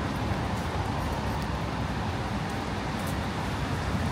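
Steady city street traffic noise: a low, even rumble of passing cars, with a few faint high ticks.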